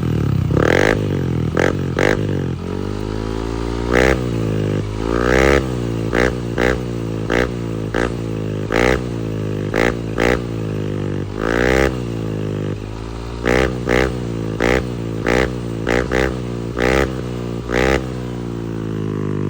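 Yamaha NMAX V2 scooter's single-cylinder engine through an aftermarket Apido V5 exhaust, idling and blipped again and again: about twenty quick revs rising and falling, a few held a little longer. The exhaust note is crisp.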